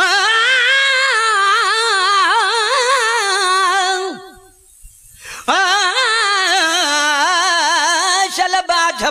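A naat singer's voice holding two long sung phrases with wide vibrato, with a short break about four seconds in. A few quick clicks sound near the end.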